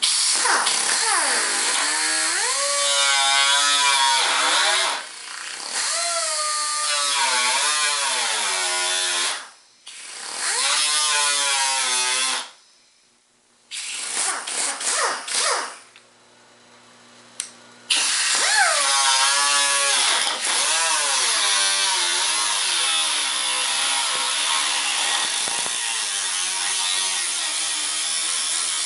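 Pneumatic cut-off tool slicing into the sheet steel of a rusted trunk lid: a high whine that sags in pitch as the disc is pushed into the metal and climbs again as it frees up. It stops and restarts several times, with a few short bursts about halfway through, then runs steadily through a long cut.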